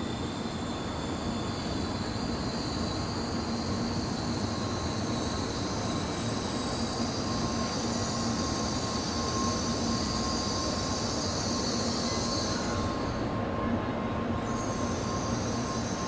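N700-series Shinkansen train standing at the platform, its onboard equipment giving a steady low hum with several constant high-pitched whines. The whines cut out briefly near the end, then come back.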